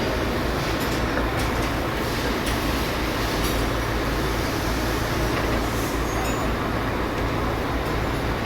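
Steady low mechanical drone, even in level throughout, with a few faint light clicks over it.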